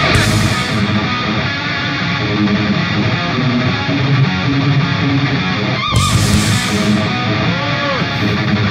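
Background music led by guitar, with sustained, bending notes.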